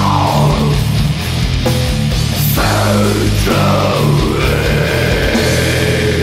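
Heavy metal band playing: distorted electric guitar chords over bass and fast drums, with several falling pitch sweeps.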